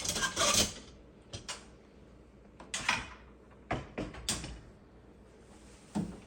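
Plastic scraping, rattling and clicking of an Asko dishwasher's upper-rack slider rail being pushed off its tabs and slid out: a loud scraping rattle at the start, then a few sharp clicks and knocks spread through the rest.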